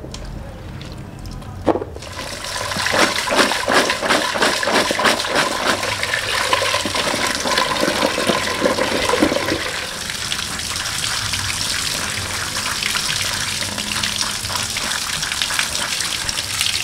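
Washing vegetables by hand: cut long beans swished in a pot of water, then a stream of running water splashing onto beans and bean sprouts in a basket and colander as hands rub and stir them. About two seconds in the splashing starts, busy and irregular, and after several seconds it settles into a steady rush of running water.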